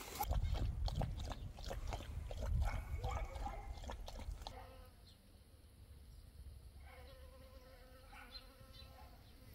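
Honeybees buzzing at a stone wall: a faint steady hum in the second half, after a few seconds of rumble and scattered clicks.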